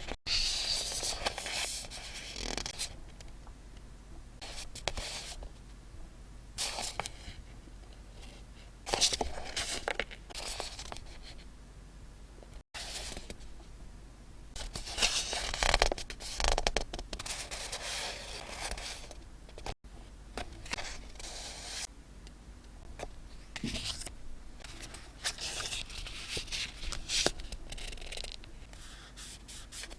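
Paper and stationery being handled up close for scrapbooking: irregular rustling, rubbing and tearing of paper, with louder strokes about nine seconds in and again around fifteen seconds.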